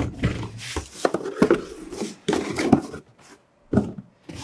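Hands handling a cardboard box and a fabric-covered semi-hard case on a table: a quick run of knocks, scrapes and rustles for about three seconds, a short pause, then another single knock.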